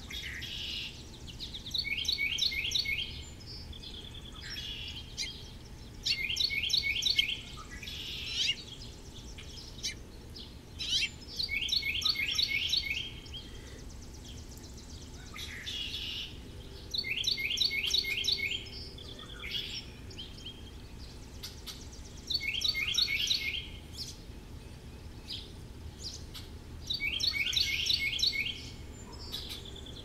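A songbird sings the same short phrase over and over, about every five seconds. Each phrase is a quick run of repeated high, slurred notes lasting a second or so. A steady low background rumble runs underneath.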